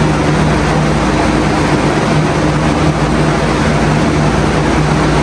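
Loud, steady machine noise: a continuous rushing sound with a low hum, unchanging throughout.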